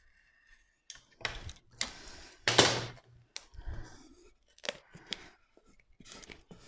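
Self-adhesive vinyl film being trimmed and smoothed: a snap-off utility knife cuts off the excess, then a plastic smoother is rubbed over the film. The result is a series of short scratchy strokes and clicks, the loudest about two and a half seconds in.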